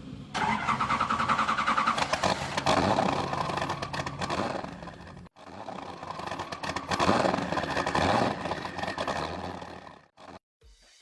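A motor revving and running in two long bursts, with a brief cut-off in between.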